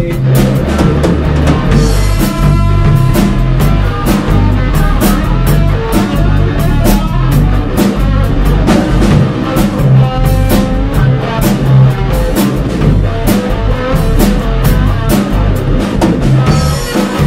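Live blues-rock boogie played on electric guitar, drum kit and bass guitar, with no vocals: the guitar plays lines up the neck of a Stratocaster-style guitar over a steady drum beat.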